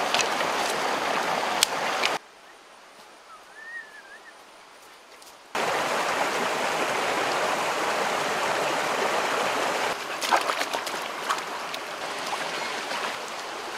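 Shallow rocky stream running, a steady rush of water. About two seconds in it drops away suddenly for some three seconds, with one short warbling chirp, then the rush returns; a few light splashes and knocks come near the end.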